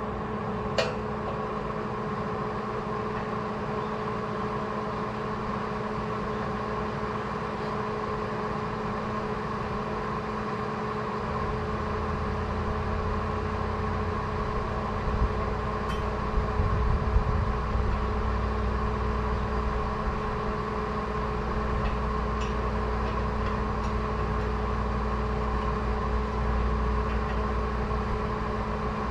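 Welding machine humming steadily with a few sharp metal clinks. A low rumble joins about a third of the way in.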